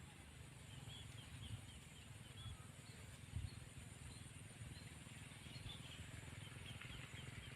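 Faint rice-field ambience: small birds chirping in short high notes, several a second, over a steady low rumble, with one brief low thud a little over three seconds in.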